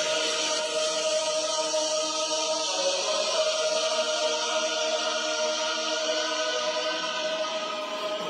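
Background music with sustained choir-like voices holding long, steady chords.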